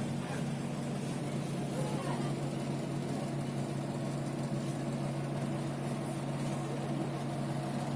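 A steady low motor hum that holds one even pitch throughout.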